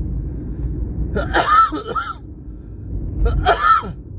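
Steady low rumble of a car driving, heard from inside the cabin. It is broken by two short, harsh vocal sounds with a pitch that rises and falls, the first about a second in and the second about two seconds later.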